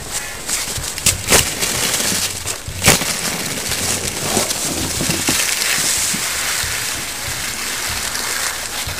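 Sled on snow: a few sharp thumps in the first three seconds, the loudest about three seconds in, then a steady hiss as the sled slides over the snow.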